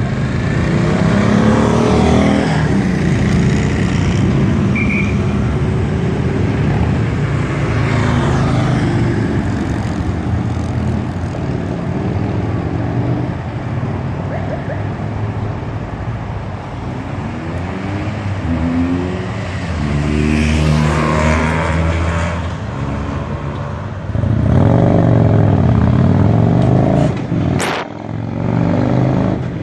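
Car engines running and revving, their pitch rising and falling as they pull away and change speed. One sharp click near the end.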